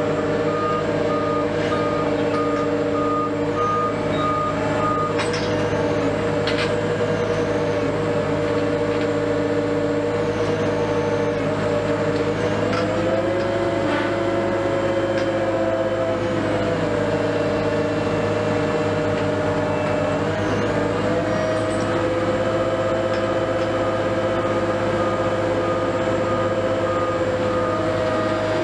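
Diesel engine of a Liebherr LTM 1750-9.1 mobile crane running steadily, its speed rising and falling around the middle and picking up again later. A reversing alarm beeps at the start and again in the second half.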